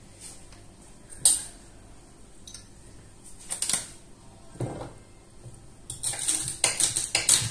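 Kitchen utensils and dishes clinking and knocking. There is a sharp knock about a second in, a few scattered clinks, and a quick run of knocks near the end.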